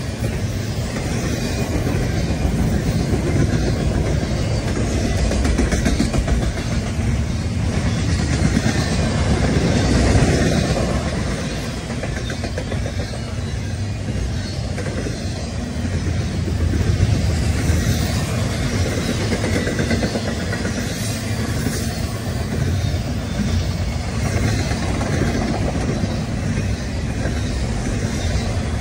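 Double-stack intermodal container train passing at track side, its well cars' steel wheels rolling on the rails in a steady rumble.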